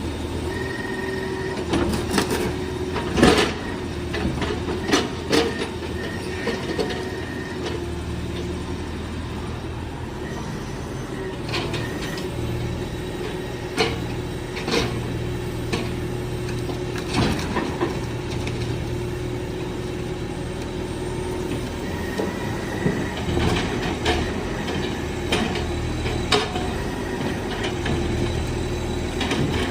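BD95W wheeled excavator working with its grapple: the diesel engine runs steadily, broken by repeated sharp clanks and knocks as the grapple and its load are handled.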